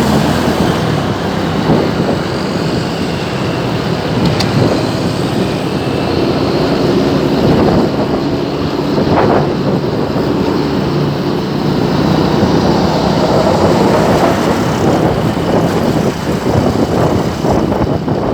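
Road traffic: vehicle engines running steadily with road noise and a low engine hum.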